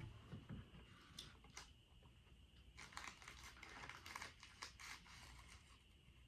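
Faint crinkling and clicking from a snack and its wrapper being handled, in short scattered bursts, most of them between about three and five seconds in.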